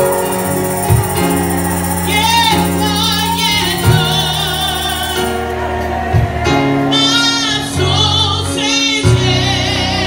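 A woman sings a gospel song live into a microphone, her voice wavering with vibrato on held notes. Band accompaniment underneath holds sustained low notes, with a few drum hits a few seconds apart.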